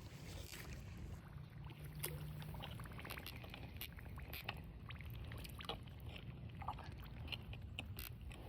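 Shallow creek water sloshing and splashing around someone wading through it, with scattered small clicks and splashes over a steady low rumble.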